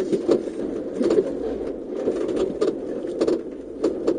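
Off-road 4x4 driving over a rough dirt forest track, heard from inside the cab: a wavering engine drone with frequent knocks and rattles from the bumpy ground.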